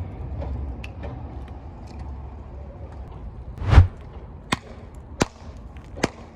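A car tyre rolling onto and crushing an object: a low rumble, then one loud crunching burst with a heavy thud a little under four seconds in, followed by three sharp snaps under a second apart.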